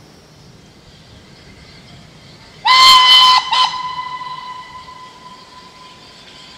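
A steam locomotive's whistle: one loud blast of just under a second, a brief break, then a short second blast. Its single note fades away slowly afterwards.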